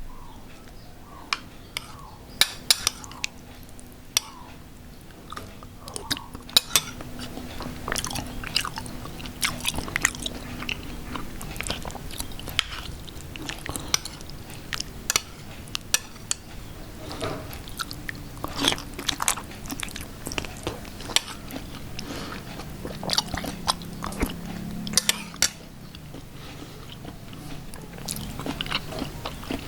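Close-up eating of soup: irregular slurps, sips and mouth smacks.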